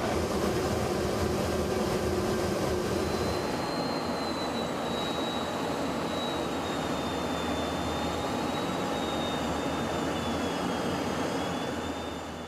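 Jet aircraft engine running steadily: an even rushing noise with a thin high whine that drifts slightly in pitch, fading out near the end.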